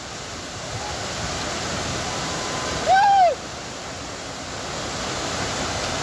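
Steady rush of water pouring down a concrete canal spillway chute. About three seconds in, a person gives one short shout that rises and falls in pitch.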